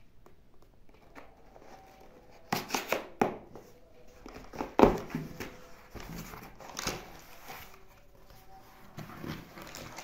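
Cardboard mailer box being pulled open and unfolded by hand: several sharp rips and rustles of cardboard, the loudest about five seconds in, then plastic packaging crinkling near the end.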